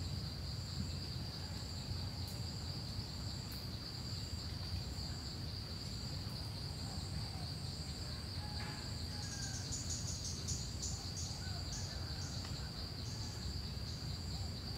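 Forest insects calling: one gives a steady high-pitched chirring while another pulses above it about once a second, breaking into a quicker run of pulses about ten seconds in. A low rumble lies underneath, with a few faint bird calls.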